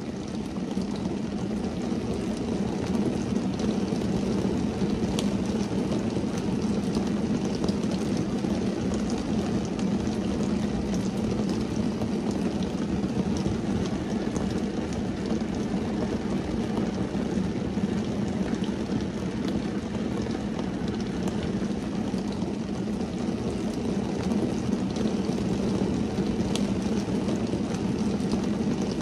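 Rain falling on a car's windshield and roof, heard from inside the car: a steady, dull rush with a few sharper drop ticks.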